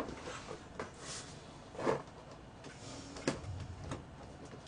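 Plastic takeout food containers and lids being handled on a table: scattered clicks, knocks and rustles, the loudest about two seconds in and again just after three seconds.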